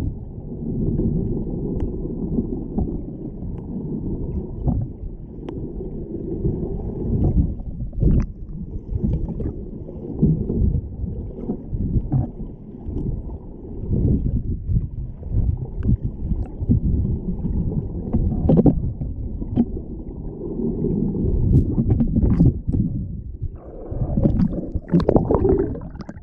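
Muffled, irregular water sloshing and rumbling through a GoPro's waterproof housing, with scattered small knocks. It grows brighter and splashier in the last few seconds.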